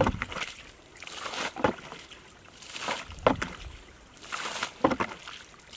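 Water being bailed with a plastic bucket from a shallow muddy pool: a scoop and splash of thrown water in a steady rhythm, about once every second and a half.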